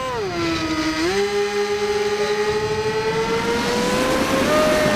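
Electric motor of a Firebird Stratos RC airplane whining, heard from the onboard camera. The pitch dips briefly about a second in, as the plane points skyward, then climbs steadily with a growing rush of air as it dives toward the ground.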